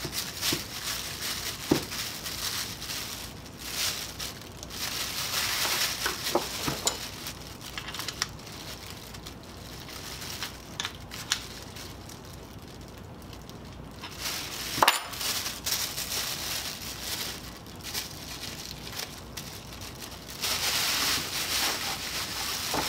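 Thin plastic bag crinkling and rustling in gloved hands as it is folded and clamped, in several bursts, with a few sharp clicks, the loudest about fifteen seconds in.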